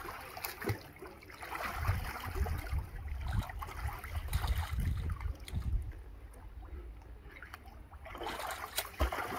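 Water in a small above-ground frame pool splashing and sloshing as a swimmer moves underwater and kicks his legs up through the surface, with a heavier churning stretch in the middle.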